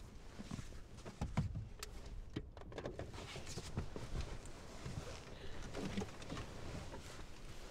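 Clothing rustling, with scattered small clicks and soft knocks, as people shift about inside a car. The sharpest click comes about a second and a half in.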